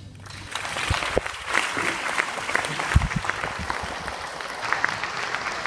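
Audience applauding in a hall, the clapping building up within the first second and then slowly dying down, with a dull thump about three seconds in.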